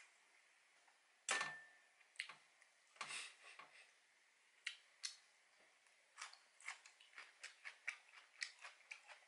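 Quiet eating sounds of a soy-marinated rock crab meal: a steel utensil clicks against a dish about a second in with a brief ring, a few more taps follow, and from about six seconds a run of small quick clicks, two or three a second, while the food is chewed.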